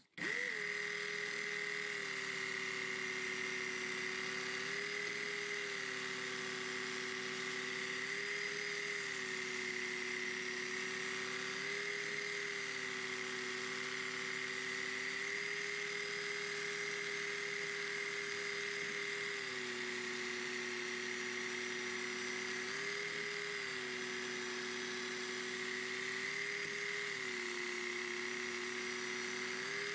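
Work Sharp Ken Onion Elite belt sharpener running steadily on its medium-grit belt while a knife blade is drawn across it for sharpening passes. It is switched on just as the sound begins. Its motor hum shifts slightly in pitch every few seconds.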